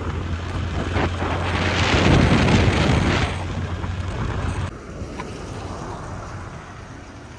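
Wind buffeting the microphone on a moving two-wheeler, over a low steady engine hum; the rush is loudest about two seconds in. About five seconds in it cuts off abruptly to a much quieter, even outdoor background.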